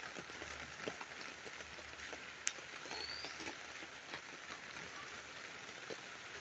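Steady rain falling during a flood, with scattered drips, one sharp tick about two and a half seconds in, and a short rising chirp about halfway through.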